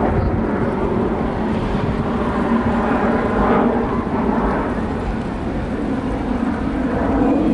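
Aircraft flying overhead: a steady rushing rumble of engine noise, with a brief swell about three and a half seconds in.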